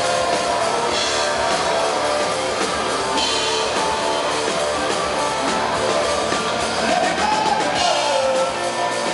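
Live rock band playing at full volume: distorted electric guitars over a drum kit, with a male lead voice singing in the last couple of seconds.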